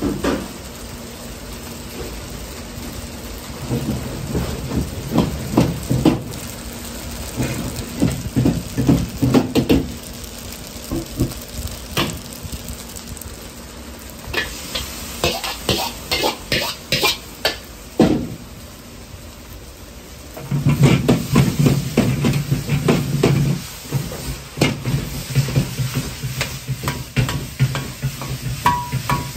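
Stir-frying fried rice in a steel wok: a metal ladle scraping and knocking against the wok in runs of quick strokes while the food sizzles. About two-thirds of the way through, a gas wok burner starts running loudly under fast, rhythmic tossing and stirring.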